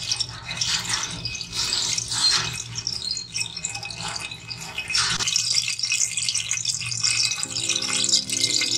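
Cooking oil heating in an aluminium pot on a stove, with a continuous crackling hiss over a steady low hum.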